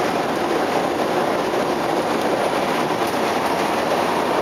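Kyoto Municipal Subway 10 series car, converted to Mitsubishi IGBT-VVVF inverter control, running at speed, heard from inside the car. A steady rumble of wheels on rail, with no motor whine standing out from the very quiet inverter drive.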